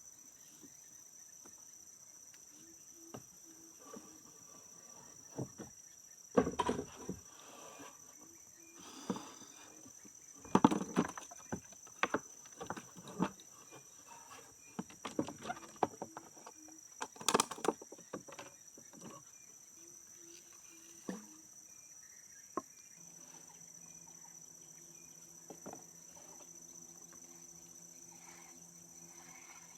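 Steady high-pitched chorus of insects, crickets among them, with scattered knocks and clatter, loudest in the middle stretch. A low steady hum comes in about two-thirds of the way through.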